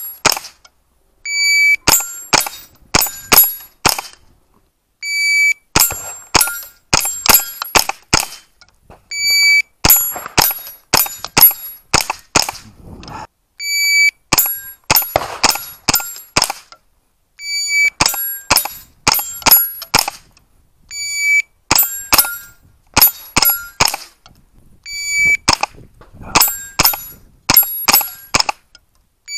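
Repeated timed runs of a .22 rimfire AR-style rifle shooting steel plates. Each run opens with a shot timer's short electronic start beep, followed by a quick string of about five or six shots, with the steel plates ringing briefly as they are hit. Seven such runs follow one after another.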